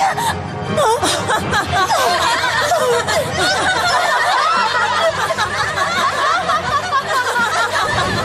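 A crowd of girls laughing and snickering together, many voices overlapping, over background music.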